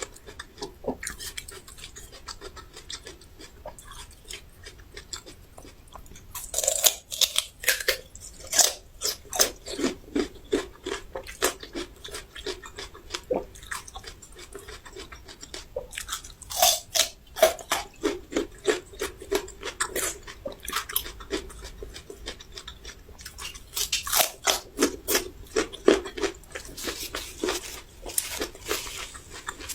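Raw ginger root being bitten and chewed close to the microphone: steady wet chewing with three louder bouts of crisp crunching.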